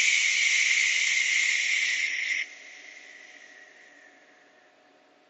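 A person's long, loud hissing breath close to the microphone, cutting off suddenly about two and a half seconds in, leaving a faint steady hum.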